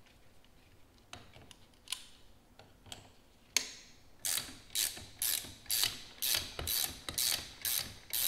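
Ratchet wrench clicking in short strokes about twice a second from about four seconds in, after a few scattered clicks, as it runs down the top nut of a coilover shock assembly.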